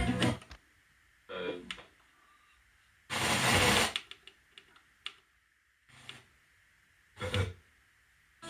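Sony FH-B177 mini hi-fi's radio tuner being tuned between stations. It is mostly quiet, with a few brief snatches of broadcast sound and one burst of static hiss about three seconds in, plus a few small clicks.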